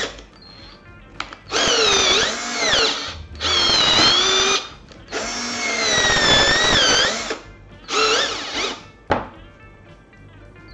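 Stilmax STL5800F cordless drill/driver's motor run free in four bursts, its whine rising and falling in pitch within each run.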